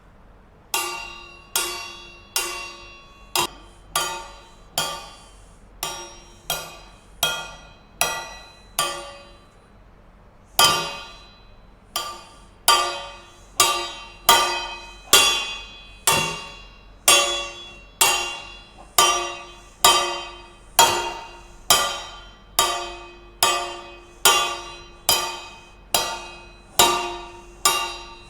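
A ringing metal noisemaker struck over and over, each clang ringing out and fading before the next, about one or two strikes a second, with a short pause about nine seconds in; the sound is being made to set salt grains bouncing on a plastic-wrap drum.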